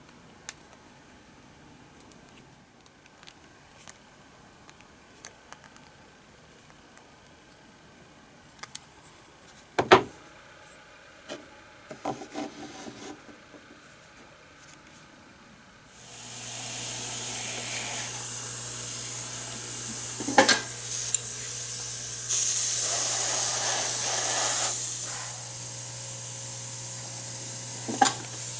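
Light clicks and taps, with one sharp knock about ten seconds in. About halfway through, an airbrush starts spraying paint: a loud, steady hiss over the constant hum of its small compressor.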